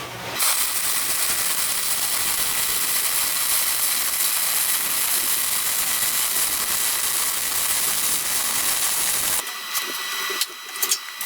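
Power tool running steadily for about nine seconds, then cutting off, followed by a few light knocks.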